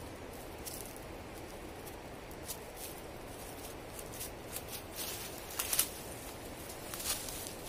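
Dry fallen leaves and twigs crunching and rustling underfoot as a person steps down off a rock onto the leaf litter. The crackles are sparse at first and grow thicker and louder from about five seconds in, over a steady low hiss.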